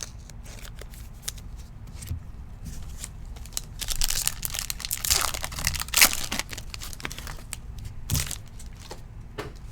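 A Prizm football trading-card pack wrapper crinkling and tearing open by hand, with irregular crackles that are loudest about four to six seconds in and again near eight seconds.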